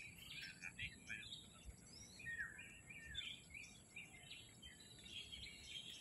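Faint birdsong, many small birds chirping in short, scattered calls, with one longer whistled note a little before the middle.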